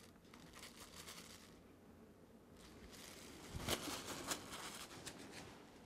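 Faint crinkling and rustling of plastic cling wrap (saran wrap) being pressed and smoothed by gloved hands, with a few sharper crackles a little before and after four seconds in.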